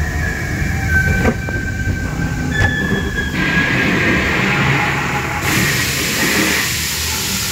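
Ride noise from a dark boat ride: a steady low rumble with a couple of sharp clicks in the first few seconds. A hissing rush comes in about three seconds in and grows stronger a couple of seconds later.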